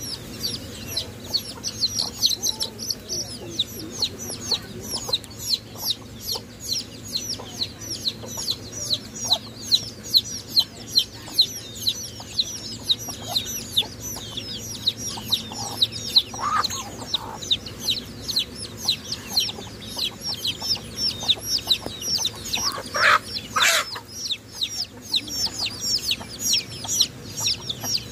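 A brood of Muscovy ducklings peeping without pause: short high peeps, each falling in pitch, several a second. A few louder, lower clucks from chickens break in about halfway through and again near the end.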